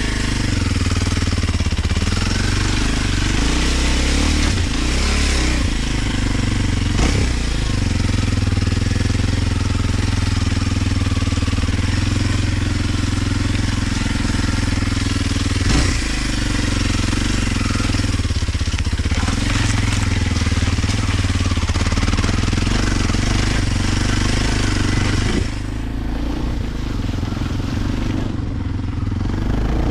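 Kawasaki KLX 230 dirt bike's single-cylinder four-stroke engine running under way, its pitch rising and falling with throttle and gear changes. A couple of sharp knocks come through from the rough ground. About 25 seconds in, the engine eases off to a lower, quieter run.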